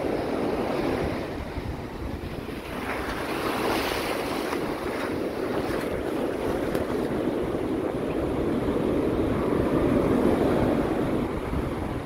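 Ocean surf washing onto a sandy beach, with wind buffeting the microphone. The wash swells a few seconds in and again near the end.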